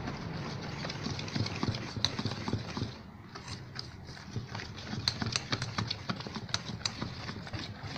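Wire balloon whisk beating thick cake batter in a stainless steel bowl, the wires clicking and scraping against the metal in a quick, uneven rhythm. There is a short lull about three seconds in before the whisking picks up again.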